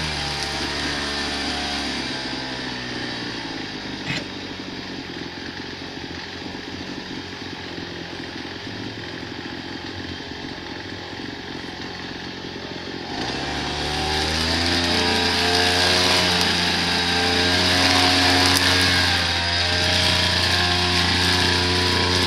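Small petrol engine of a lawn-care power tool running steadily, quieter for a stretch and then louder from about 13 seconds in, with a single sharp click about four seconds in.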